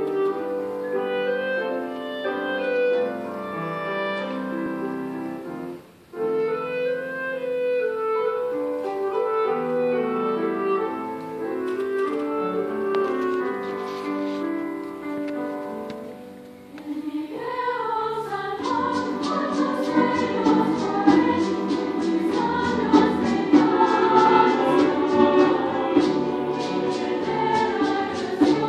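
Mixed choir singing a slow Latin song in sustained harmony, with piano and double bass. The singing breaks off briefly about six seconds in. About two-thirds of the way through, hand percussion comes in with a steady beat and the choir grows fuller and louder.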